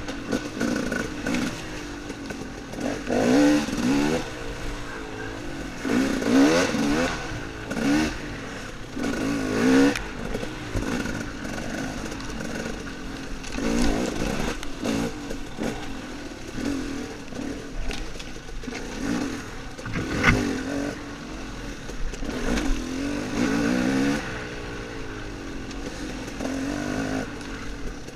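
Off-road dirt bike engine ridden hard, revving up and falling back every few seconds as the throttle is opened and closed. There are occasional knocks and clatter, the sharpest about twenty seconds in.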